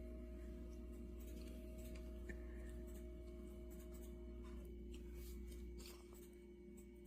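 Quiet steady hum with a faint held tone, and a few faint small clicks scattered through the first six seconds.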